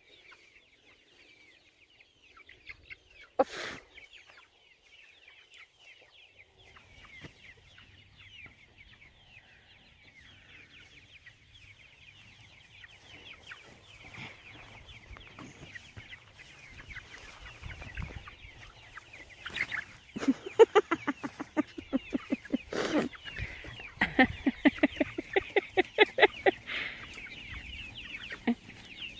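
A flock of chickens peeping steadily, with a run of loud, rapid clucking calls in the last third. Two sharp knocks, one a few seconds in and one about 23 seconds in.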